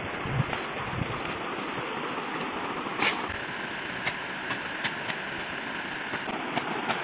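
Dry wooden sticks cracking and snapping as they are broken and handled: a string of sharp cracks, the loudest about three seconds in and several smaller ones near the end, over the steady rush of a flowing river.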